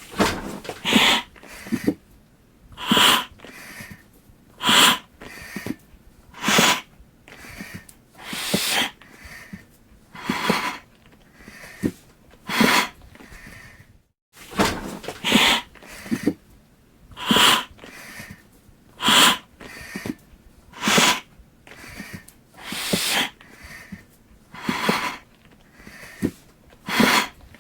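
Breathing through a hand-held oxygen mask: a loud, hissing breath about every two seconds, each followed by a softer one, in a steady rhythm. There is a short break about halfway through.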